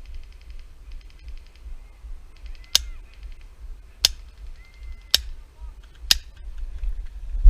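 Airsoft gun firing four single shots, sharp cracks about a second apart, between short bursts of rapid ticking.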